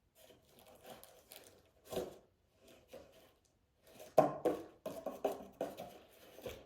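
Irregular knocks and clatter of a plastic cup and its cardboard packaging being handled and set down, loudest about four seconds in.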